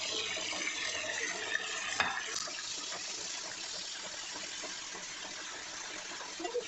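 Chicken pieces frying in hot oil in a pan, a steady sizzle, with a single click about two seconds in.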